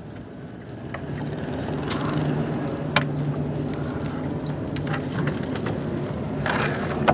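Small boat engine running steadily, its hum growing a little louder over the first second or so, with a few light knocks on top.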